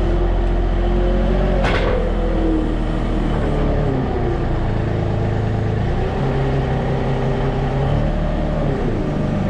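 Loader's diesel engine running under hydraulic load while a bale grab handles a straw bale, its speed dropping and rising as the loader works. A single sharp knock comes about two seconds in.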